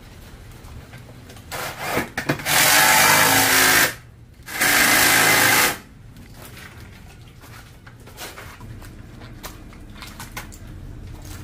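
Power drill running in two bursts of about a second and a half each, with a short pause between. Faint scattered clicks follow.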